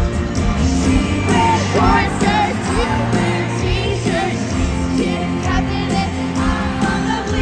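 Live stadium pop concert heard from the stands: a female lead singer singing into a microphone over her band's steady backing.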